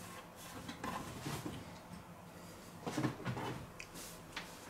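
Faint handling noises from hands working on a wooden cutting board: a couple of soft rustles and light knocks, about a second in and again around three seconds in.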